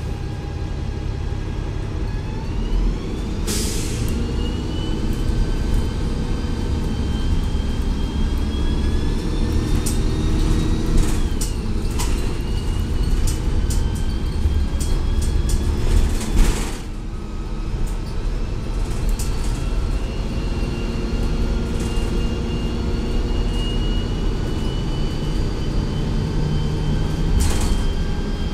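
2004 Gillig Advantage bus's Cummins ISL diesel and Voith D864.3E automatic transmission pulling away: a whine rises steadily in pitch, drops about eleven seconds in as the transmission shifts up, then climbs again slowly. Short bursts of air hiss come three times, and there are scattered small rattles.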